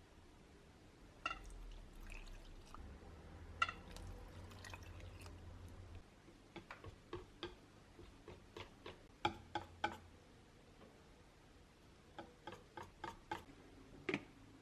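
Kitchen cooking sounds: a run of light, irregular clicks and taps, with a low hum under the first half.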